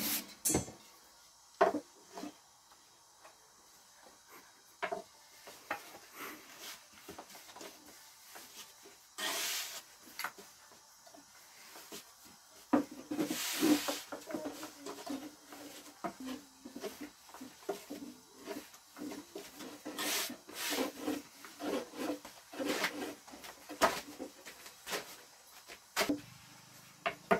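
A long wooden rolling pin rolling flatbread dough thin on a floured wooden board. It makes irregular rubbing and scraping strokes, a few longer passes lasting about a second, and light knocks of wood on wood.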